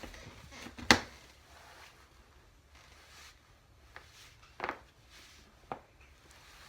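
Spinal joints cracking: one loud, sharp crack about a second in, then three fainter pops a few seconds later.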